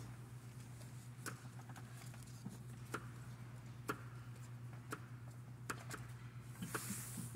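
Quiet room tone in a large church: a steady low hum with scattered faint clicks at irregular intervals, and a short hiss near the end.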